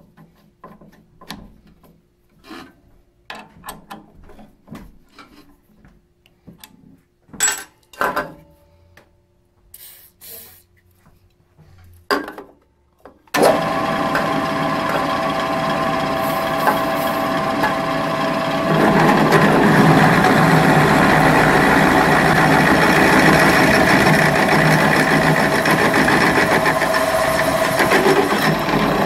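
Scattered clicks and taps of hand work at a drill press. About 13 seconds in the drill press motor starts with a steady hum, and from about 19 seconds the bit is cutting into a thick steel tube, a louder grinding noise over the hum.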